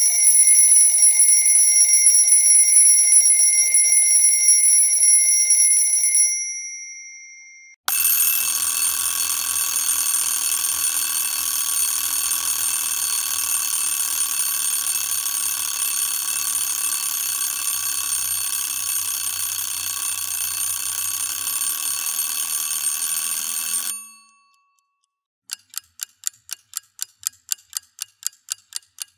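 Alarm clock ringing: a shrill ring lasting about six seconds that fades out, then after a short gap a second, denser alarm ringing steadily for about sixteen seconds before stopping abruptly. Near the end a clock starts ticking, about three ticks a second.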